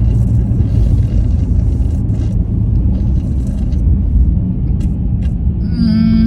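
Car cabin road noise while driving: a steady low rumble, with a few faint ticks. Near the end a long, held, pitched sound with many overtones begins.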